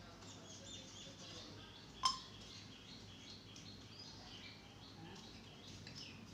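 Faint, scattered high bird chirps in the background, with one sharp click about two seconds in.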